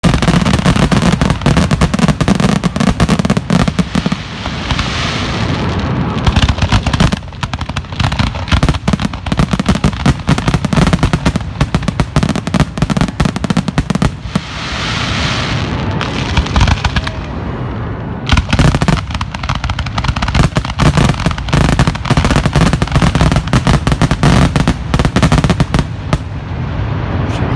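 Fireworks going off at close range: a rapid, dense string of shots and crackling bursts that runs without pause, with two stretches of hiss about five and fifteen seconds in.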